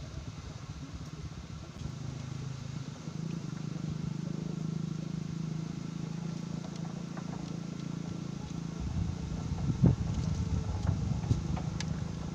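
An engine running steadily: a low, even hum that builds in over the first few seconds and grows heavier near the end, with a single knock about ten seconds in.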